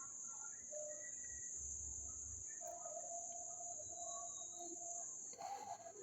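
Steady, high-pitched trilling of crickets, faint, with a short rustle near the end.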